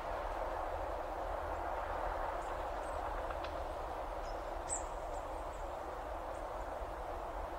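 Steady outdoor background noise with a few faint, short high chirps about four to five seconds in.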